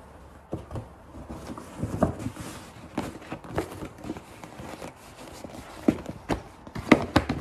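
Stiff ribbed white paper gift packaging being handled and opened: irregular rustling and crinkling with scattered clicks, and a few sharper crackles near the end.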